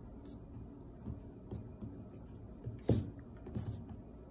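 A puppy pawing at a spring door stop on a laminate floor: light taps and claw clicks, with one sharp knock about three seconds in.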